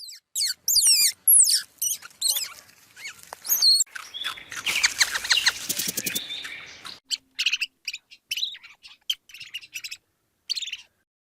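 A songbird chirping and singing in quick, high, sweeping notes, with a fast run of rapid chirps in the middle.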